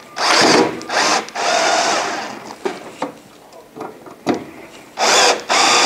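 Cordless drill with a Phillips bit driving screws in, in several short runs: two quick bursts, a longer run of about a second, then two more bursts near the end.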